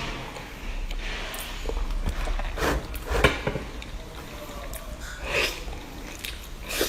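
A person chewing and biting food close to the microphone, with wet mouth sounds and a few irregular sharp crackles.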